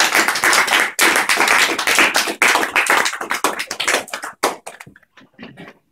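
Small audience applauding: dense clapping that thins to a few scattered claps about four and a half seconds in.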